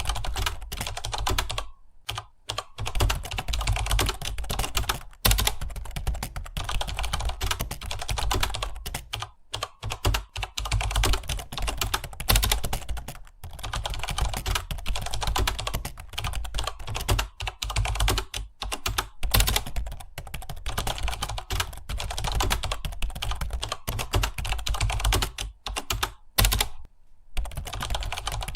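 Fast, continuous typing on a computer keyboard, a dense run of key clicks broken by a few brief pauses.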